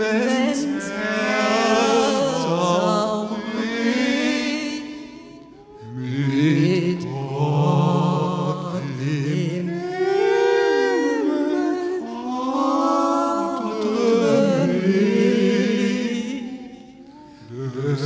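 Low voices chanting a slow, drawn-out melody together, several pitches sounding at once and stepping up and down, in long phrases that break off about six seconds in and again near the end.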